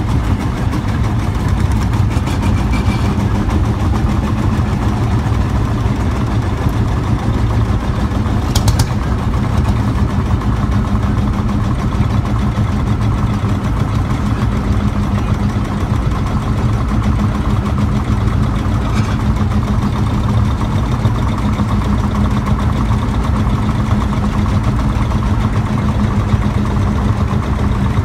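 Vintage tractor engines running steadily at low speed as the tractors drive slowly past one after another, with a brief click about nine seconds in.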